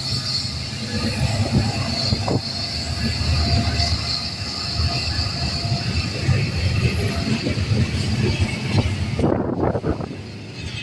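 Freight train cars rolling past: a steady low rumble with wheel clicks and a steady high wheel squeal. About nine seconds in, the squeal cuts off and the rumble quiets.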